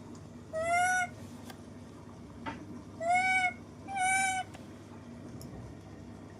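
Baby monkey giving three high-pitched, even cries of about half a second each, the first about half a second in and the last two close together about a second apart.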